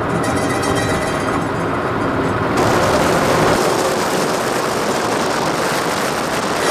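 A car driving, heard from inside: a steady road and engine rumble. About two and a half seconds in it turns brighter and hissier.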